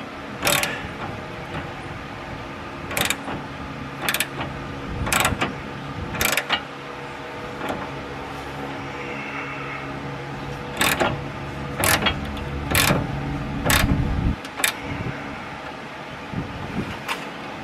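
Hand ratchet clicking in short strokes, about one a second with pauses, as it tightens the forcing bolt of a tie rod separator to press the tie rod's ball joint out of its socket. A steady hum runs underneath.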